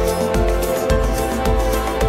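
Background music with a steady beat, about two beats a second, under held notes.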